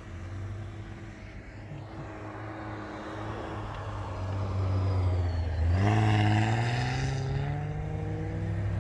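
Jeep Wrangler engines working through deep snow: a steady low drone, with the revs climbing sharply about two-thirds of the way through and the engine sound growing louder near the end.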